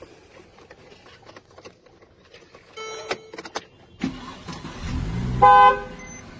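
Car horn honked once, a short loud blast about five seconds in. Just after it, the car's warning chime starts beeping at a steady, even pace.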